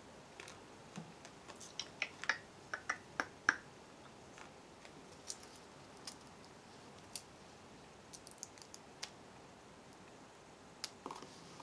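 Small, sharp clicks and light rustles of paper embellishment pieces and a clear plastic tub being handled by hand, a quick cluster of them about two to three seconds in, then sparser ones.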